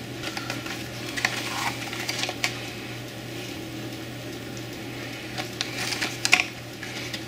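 Cardboard retail box handled and turned over in the hands: scattered light taps and rustles, with a sharper cluster of knocks about six seconds in, over a steady low hum.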